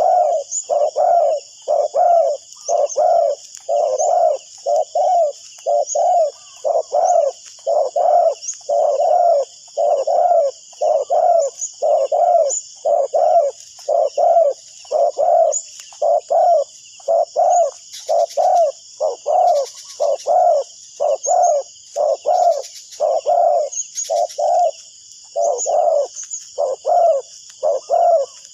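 Spotted dove cooing over and over, low coo notes repeating in a steady rhythm a little faster than one a second, with a short break near the end. A constant high chirring with small chirps runs behind it.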